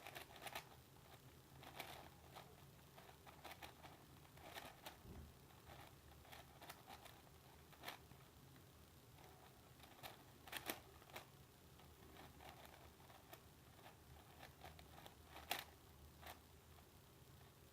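Yuxin 5x5 speed cube being turned in a solve: quiet, irregular clicks and clacks of its plastic layers.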